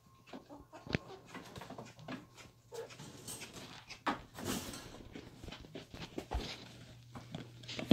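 Newfoundland pup licking and mouthing peanut butter from a jar: irregular wet smacks, laps and small clicks, with a stretch of breathy noise about halfway through.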